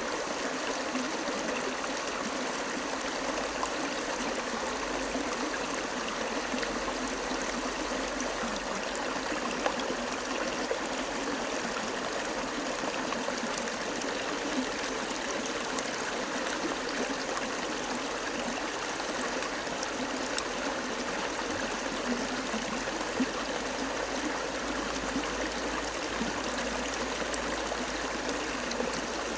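Running water flowing steadily, an even rushing noise without pause.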